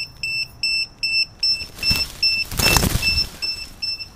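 Electronic buzzer on a crashed F450 quadcopter beeping in a steady run of short high-pitched beeps, about two and a half a second. A burst of rustling noise swells and fades in the middle.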